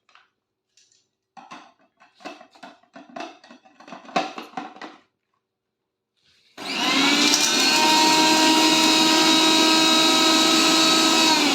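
Prestige Delight Pro 750-watt mixer grinder running on its whip (pulse) setting, with a single peppercorn in the small spice jar. The motor starts suddenly about six and a half seconds in and runs at a steady high whine.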